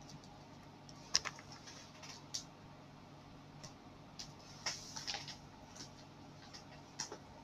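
A few scattered sharp clicks and taps, typing-like, from a laptop being handled.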